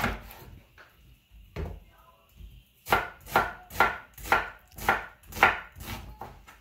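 Kitchen knife slicing a white onion on a wooden cutting board. A couple of separate cuts come first, then from about three seconds in the blade strikes the board in a steady rhythm, about twice a second.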